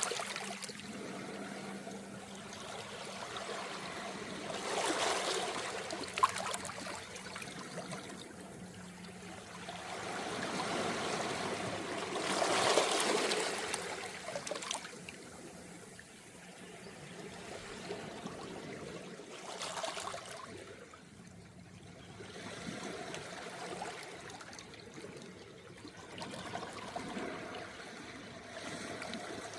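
Small, calm sea waves washing in and out on a beach of smooth round pebbles, swelling and fading every few seconds with a trickling wash of water over the stones. The largest surge comes about halfway through.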